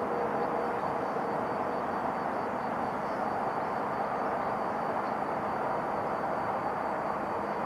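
Steady outdoor background noise, an even hiss with no distinct event, and a faint high steady whine.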